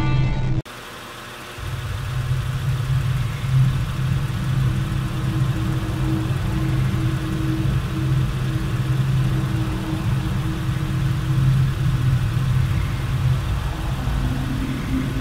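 Title music cuts off about half a second in. After a short stretch of faint hiss, a steady low mechanical hum with an even hiss starts about a second and a half in and runs on at a constant level.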